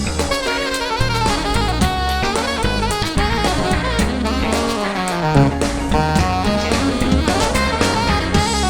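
Live band playing an instrumental passage: a saxophone carries a winding lead melody over a steadily played drum kit.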